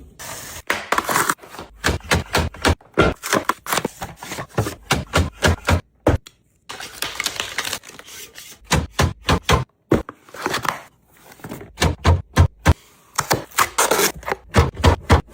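Snacks and drinks being unpacked and set into a fridge: a rapid series of clacks and taps of containers and packaging against shelves, with stretches of rustling between them.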